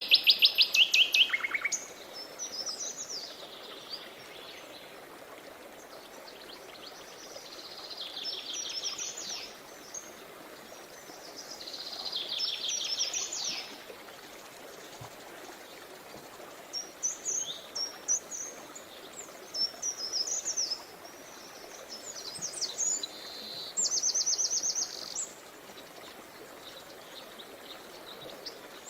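Songbirds singing in bursts every few seconds: fast trills of repeated notes and quick chirps, loudest in the first second and a half. Under them runs a steady soft rush of flowing river water.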